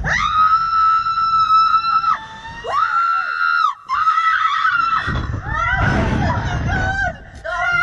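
A woman screaming on a slingshot thrill ride: three long, high, held screams in the first five seconds, then shorter cries that rise and fall in pitch.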